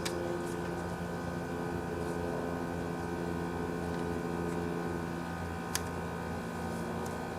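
A steady mechanical hum made of several steady tones, with a light click near six seconds in.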